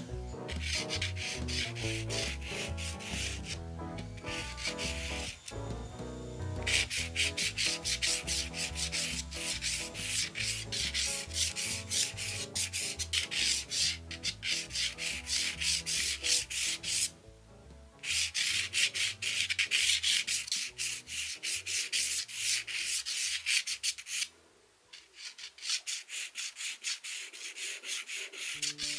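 White pastel pencil scratching across textured pastel paper in quick, rapid sketching strokes, stopping briefly a few times between bursts of drawing.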